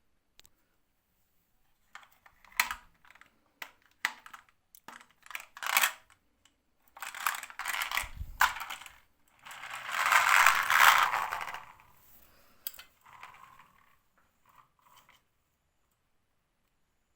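Marbles clacking and rolling down a wooden HABA marble run: scattered sharp clicks and knocks, then a longer loud rattling run about ten seconds in, and a few fainter clatters before it goes quiet.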